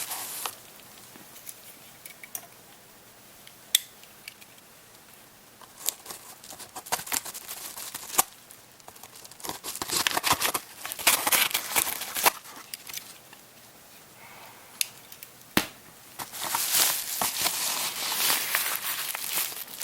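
Shipping packaging being handled and opened by hand: bursts of tearing and crinkling, with a few sharp clicks in between and quiet gaps.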